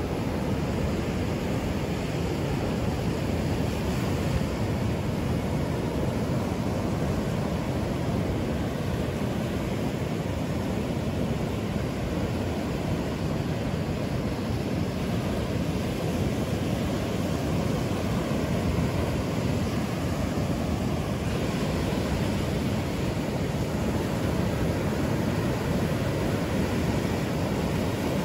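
Ocean surf washing steadily on a sandy beach, mixed with wind on the microphone, an even noise that is strongest in the low end and never breaks.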